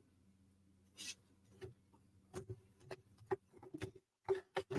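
Light, irregular clicks and taps of wooden puzzle-kit pieces being handled and set down, about a dozen small knocks spread unevenly over a few seconds.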